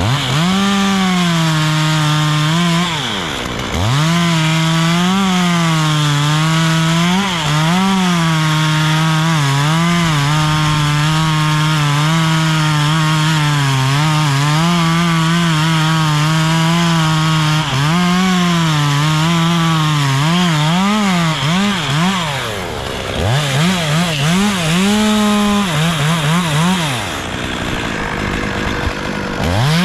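Chainsaw cutting wood: the engine runs at high revs, its pitch wavering as the chain works through the cut. It drops back to idle briefly about three seconds in and again about two-thirds of the way through, with quick throttle blips. It idles low just before revving up again at the very end.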